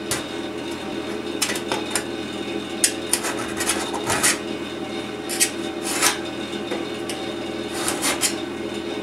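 Screwdriver tip scratching along bare sheet steel in short irregular scrapes, scoring the outline of a patch panel onto a fuel tank. A steady low hum runs underneath.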